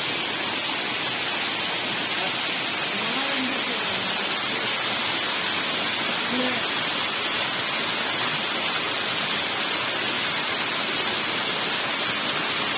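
Waterfall's falling water rushing with a steady, unbroken hiss.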